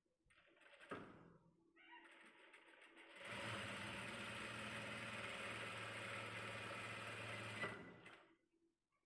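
Jack industrial lockstitch sewing machine running a seam at a steady speed for about four and a half seconds, starting a few seconds in and stopping near the end. Before it, soft fabric handling and a click.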